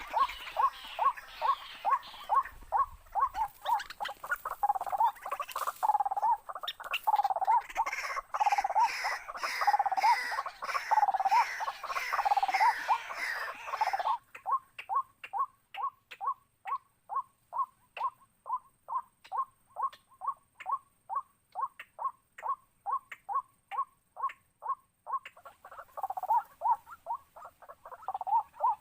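Waterhen calls: one short, harsh note repeated steadily, about two to three a second. In the first half the series is denser, with more calls layered over it. About halfway through it drops to a single, thinner run of the same note.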